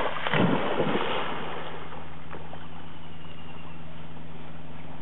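Black Labrador retriever splashing through the shallows and plunging into the lake, a burst of splashing in the first second or so, then quieter water sounds as it swims off, over a steady low hum.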